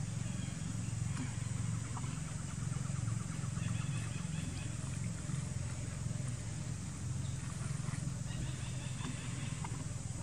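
Outdoor forest ambience: a steady low hum with a few short, rapid chirping trills from a small animal, one about a second in, another about four seconds in and another near the end.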